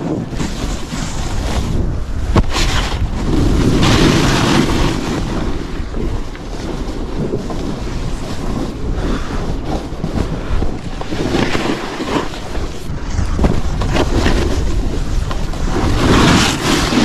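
Snowboard base and edges scraping and hissing over choppy packed snow, with wind rushing over the microphone; the scraping swells into louder surges a few times, most strongly about four seconds in and again near the end.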